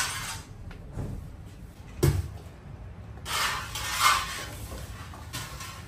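A single heavy thump about two seconds in, followed by about a second of rustling, scraping noise, like something being handled or shut.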